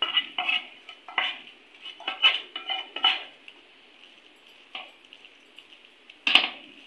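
A spoon scraping and clinking against a bowl and a nonstick dosa pan as potato masala is scooped and spread over a dosa: a quick run of short strokes in the first three seconds, then two more, at about five and six seconds in.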